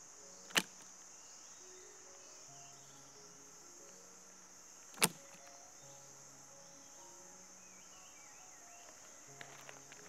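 Insects droning steadily at a high pitch in the forest, with two sharp clicks about four and a half seconds apart. Faint background music runs underneath.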